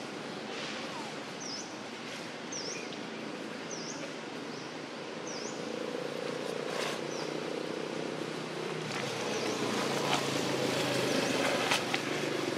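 A bird repeats a short, high, down-and-up chirp about every two seconds over open outdoor ambience. From about halfway through, a motor vehicle's engine hum rises and becomes the loudest sound.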